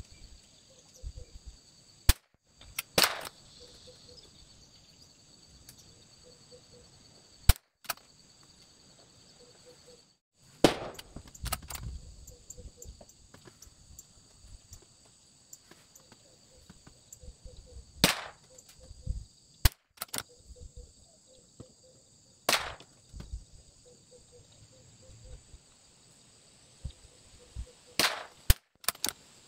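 Bergara BMR .22LR rimfire rifle firing single shots, about six sharp reports spread several seconds apart, with smaller clicks and rattles between them. Insects shrill steadily in the background.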